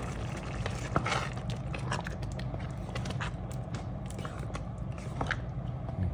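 A wooden spatula stirring thick chili beans in a heavy pot: a few short, wet stirring sounds spread through, over a steady low hum.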